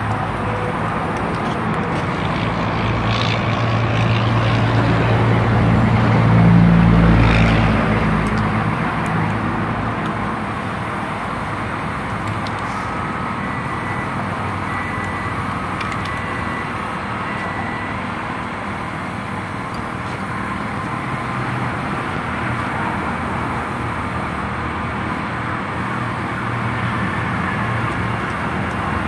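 Steady outdoor traffic noise, with a vehicle's low rumble swelling and passing about six to eight seconds in.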